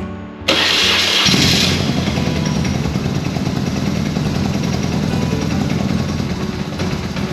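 BMW R1150R's boxer twin being started: about half a second in the starter cranks with a loud, bright burst, the engine catches within about a second and then keeps running steadily. The bike has been starting poorly.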